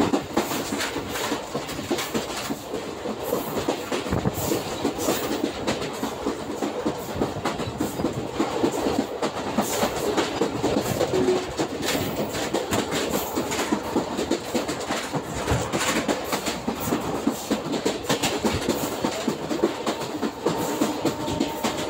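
Passenger train running at about 75–80 km/h, heard from on board: a steady rumble of the wheels on the rails with frequent irregular clacks over the rail joints.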